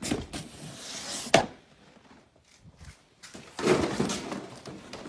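Rear seat cushion of a 2016 Dodge Charger being pulled straight up: rustling of upholstery, then one sharp snap about a second and a half in as it pops free, followed by another stretch of rustling and handling.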